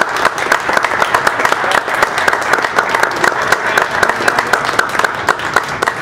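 Audience applauding: many hands clapping at once, a dense, steady clatter.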